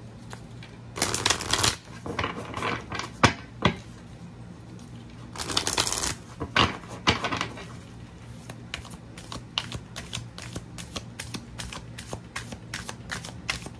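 Deck of large oracle cards being shuffled by hand: a quick riffle flutter of cards about a second in and again at about five and a half seconds, then a long run of rapid light clicks as cards are pushed through from hand to hand.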